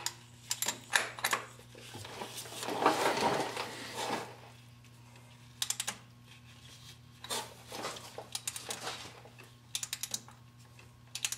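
A 3/8-inch drive ratchet clicking in short runs as a socket snugs up an oil pressure switch in the engine block. Between the runs there is a longer rustling scrape about two to four seconds in.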